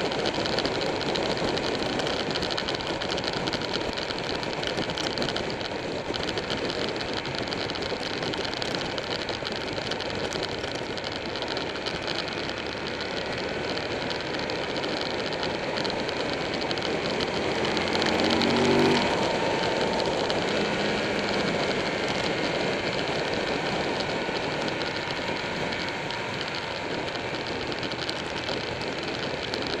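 Buell 1125R's V-twin engine running at road speed under heavy wind noise. About eighteen seconds in the engine note climbs briefly in pitch and gets louder.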